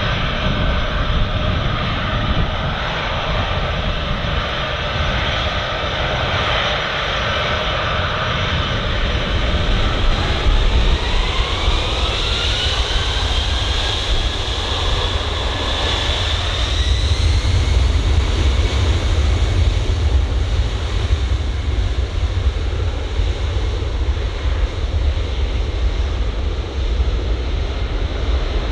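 The four Pratt & Whitney F117 turbofan engines of a Boeing C-17A Globemaster III, running with a steady jet whine. About ten seconds in, the whine rises steeply in pitch as the engines spool up to take-off power. It then settles into a louder, steady low rumble for the take-off roll.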